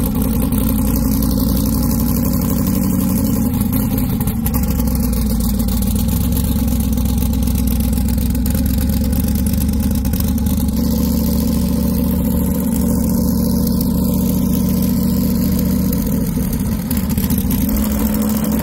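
LS-swapped twin-turbo V8 in a BMW E36 running steadily at low, even revs, a loud, constant engine note with little change in pitch.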